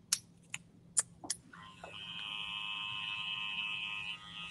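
A few sharp clicks, then an electric hair clipper switches on about a second and a half in and runs with a steady high buzz as it cuts at the nape, the buzz dropping away near the end.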